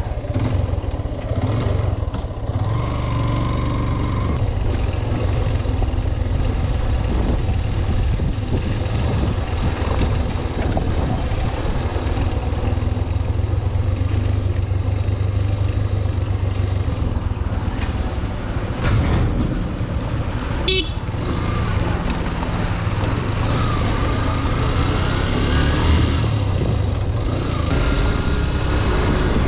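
Motorcycle engine running steadily under way, with road and wind noise, heard from the rider's seat. There are a couple of sharp knocks about nineteen and twenty-one seconds in.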